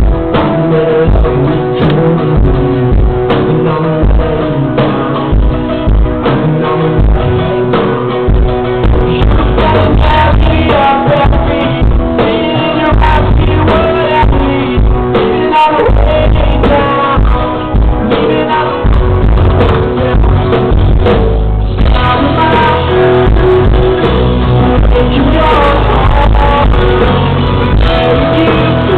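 Live rock band playing a song: a male lead singer over electric guitars and a drum kit, loud and continuous, with the top end cut off as in a camera recording.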